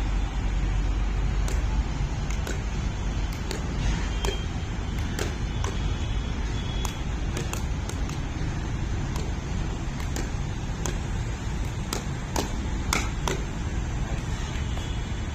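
Pickleball paddles hitting a plastic ball in a quick volley exchange: sharp pops, irregular, about one or two a second, over a steady low rumble.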